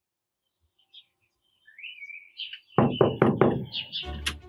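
Four quick knocks on a front door, about a quarter second apart, over birds chirping. Music starts near the end.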